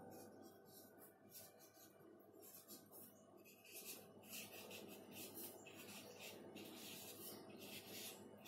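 Faint scratching and squeaking of a marker pen on a whiteboard as words are written, in a quick run of short strokes. A steady low hum runs underneath.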